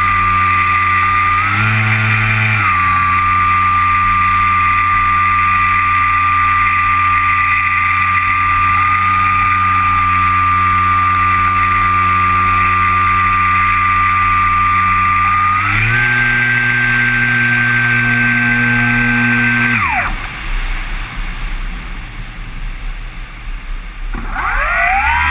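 Kyosho Stratus 2000 radio-controlled model plane, heard from its onboard camera: the motor and propeller run steadily at a high drone, stepping up in pitch briefly a couple of seconds in and again about two-thirds through. About four-fifths through the motor cuts off abruptly, leaving only wind rush while the plane glides with its folding propeller stopped. Just before the end the motor spins back up with a steeply rising whine.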